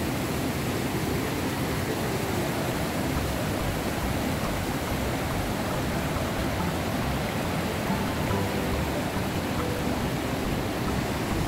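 Fast river rapids rushing over rocks, a steady, even rush of white water.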